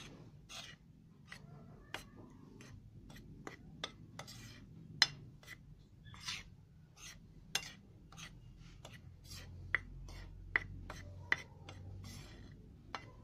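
Metal spoon mixing flour and cornstarch on a ceramic plate: soft scraping through the powder with irregular sharp clinks of the spoon against the plate, about two or three a second, a few ringing briefly.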